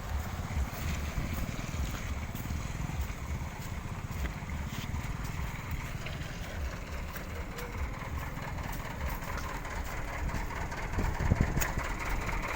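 Motor vehicle engine running at low revs, a steady low rumble with a light noisy wash over it; a short knock sounds about 11 seconds in.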